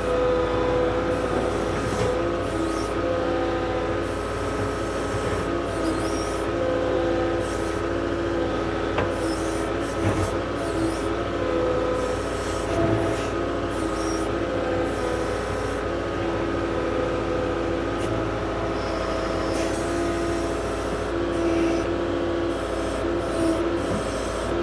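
Compact track loader's diesel engine running under load with a steady whine, its rubber tracks and bucket working as it pushes and levels loose dirt and slate.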